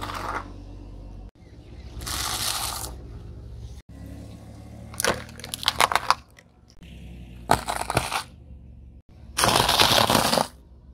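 A car tyre rolling over and crushing objects on asphalt, in a run of separate crunching bursts a few seconds apart. There are sharp cracks about halfway through, and the loudest crunch comes near the end.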